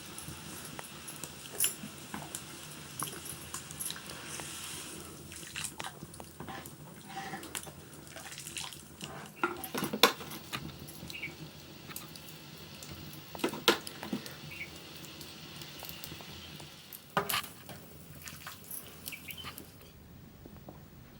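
Metal pots and cooking utensils clinking and knocking now and then over a quiet, steady background.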